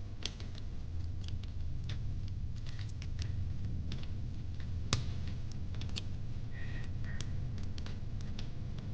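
Wood fire in a fire pit crackling: irregular pops and snaps over a low steady rumble, with one louder pop about five seconds in.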